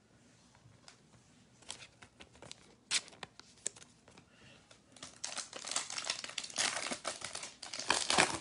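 A foil wrapper of a 2020 Topps Chrome WWE trading-card pack being torn open and crinkled by hand. A few faint clicks come first, then dense crackling crinkle from about five seconds in, loudest near the end.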